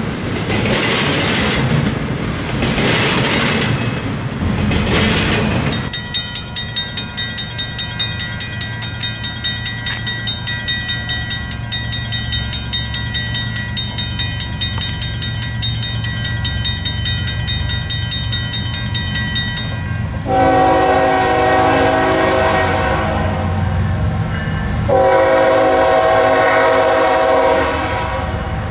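Freight train's wheels rumbling and clacking over a grade crossing for the first few seconds, then the crossing bell ringing in steady, even strokes. From about two-thirds of the way in, a locomotive horn sounds two long blasts.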